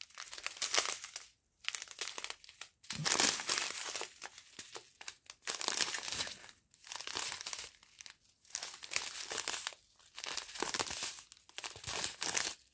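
Clear plastic packets of round diamond-painting drills crinkling as they are handled, in irregular bursts with short pauses between.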